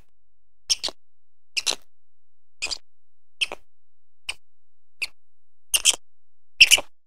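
Computer mouse clicks, sharp and short, many of them doubled, about one a second with eight in all.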